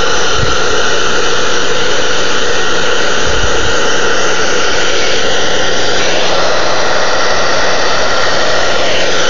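Handheld hair dryer running steadily and loudly, a rush of blown air with a steady fan whine, used as a heat source to soften vinyl wrap film.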